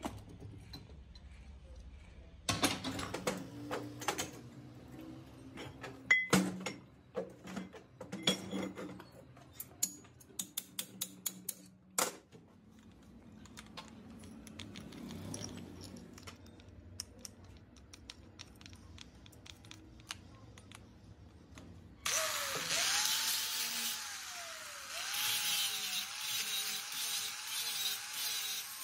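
Scattered metal clicks and clanks from tools and parts being handled on a steel bench. About three quarters of the way in, an electric angle grinder starts and runs against a steel pinion gear held in a vise, its whine dipping and recovering as it is pressed into the metal.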